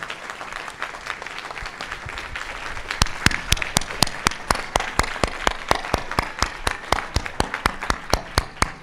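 Audience applauding after a talk. About three seconds in, a few close, sharp claps stand out over the crowd at about five a second.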